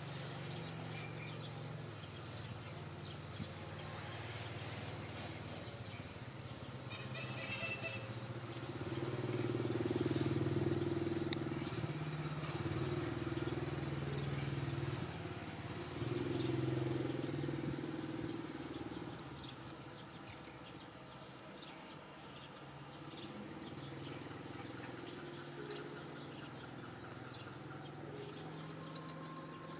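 Steady low engine hum that swells louder twice, about a third of the way in and again just past the middle, with a brief high chirp shortly before the first swell.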